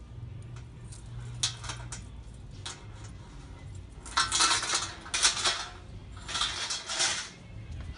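Lengths of steel chain clinking and rattling as they are handled and pulled from the reel: a few single clinks, then two longer runs of jingling, one around the middle and one near the end.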